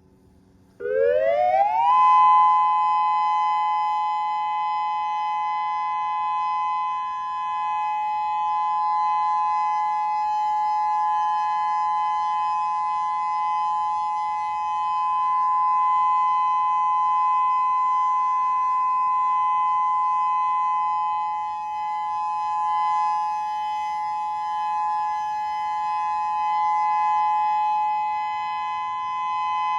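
Whelen WPS-3000 electronic outdoor warning siren sounding its steady alert signal for a test of the warning system: about a second in it sweeps quickly up in pitch, then holds a loud, steady two-note tone.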